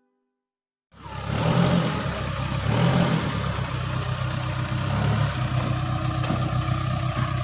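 Diesel engine of a backhoe loader (TLB) running at working revs, cutting in suddenly about a second in and continuing steadily with a low, pulsing rumble.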